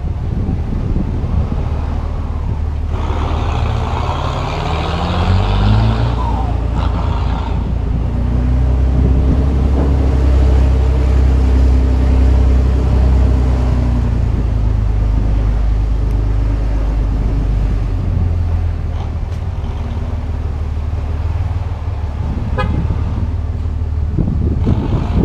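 Dodge Ram's Cummins inline-six turbo diesel with a straight-through exhaust, revving up with a rising pitch about four seconds in, running hard for several seconds, then easing off. A loud blaring sound lasts from about three to seven seconds in.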